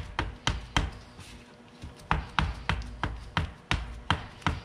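Plastic spreader slapping and tapping on a mixing board as two-part plastic repair putty is mixed: a run of sharp taps, about three a second, broken by a pause of nearly a second before the middle.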